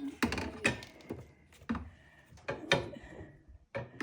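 Metal crash-bar parts and bolts knocking and clinking as they are handled and set in place on the scooter: about half a dozen separate sharp knocks.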